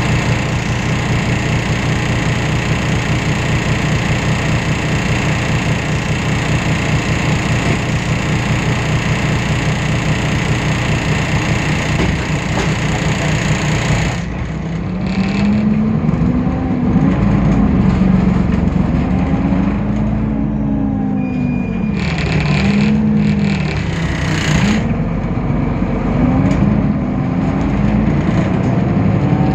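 Diesel engine of a Temsa Avenue LF city bus (DAF PR 228 engine, ZF automatic gearbox) running with a dense, steady rattling vibration for about the first half. About halfway through the sound changes, and the engine's pitch then climbs and drops several times, as when the bus pulls away and shifts through its gears.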